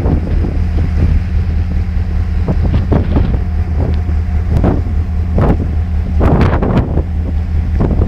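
Ship's engine running with a steady low hum while sea ice floes crunch and scrape irregularly against the hull as the ship pushes through the ice, with wind buffeting the microphone.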